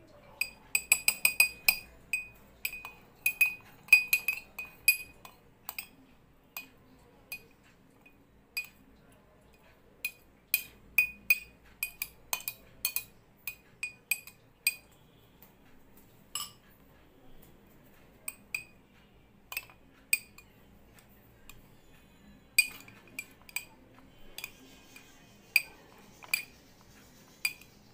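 A faceted glass tumbler clinking and ringing over and over as tapioca pearls and ice cubes are dropped into it. The sharp clinks come in quick runs in the first few seconds, thin out, then cluster again near the end.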